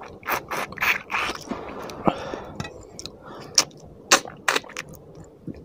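Close-miked eating sounds: fingers mixing rice and fish curry on a plate, then wet mouth smacks and chewing as a handful is eaten, with several sharp clicks.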